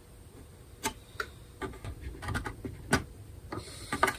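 Irregular small clicks and ticks of a blade being worked into the seam at the edge of a bowl-back mandolin's top, prying at the old, dry glue joint and binding. One sharper click comes about three seconds in.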